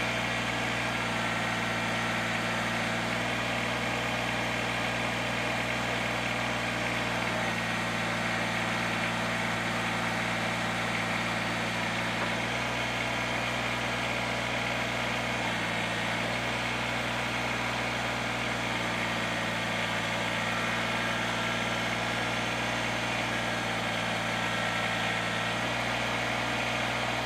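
Compact tractor's engine running steadily at constant speed while its front loader holds a heavy load aloft, the engine note shifting slightly every few seconds.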